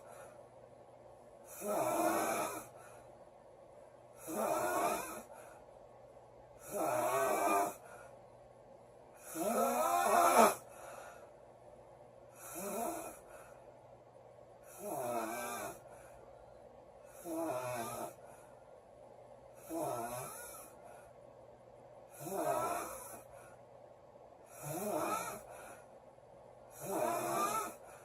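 A woman snoring loudly in a steady rhythm, one snore about every two and a half seconds, each lasting about a second, with quiet in between. The snore about ten seconds in is the loudest.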